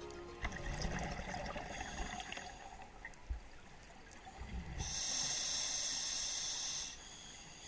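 Scuba diver breathing underwater through a regulator: bubbling rumbles of exhaled air, then a steady high hiss lasting about two seconds near the end.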